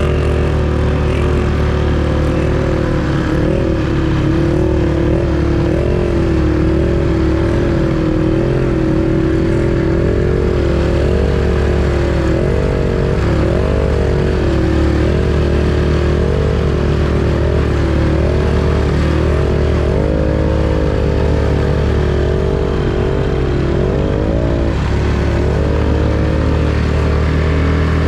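Off-road vehicle engine running while driving a trail, its pitch rising and falling continually with the throttle over a steady low drone.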